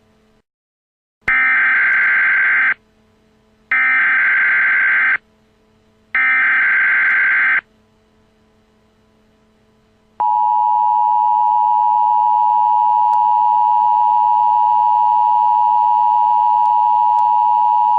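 Emergency Alert System tones: three bursts of SAME header data, a harsh warbling buzz of about a second and a half each, then about ten seconds in the steady two-tone EAS attention signal begins and holds. Together they announce an incoming severe thunderstorm warning.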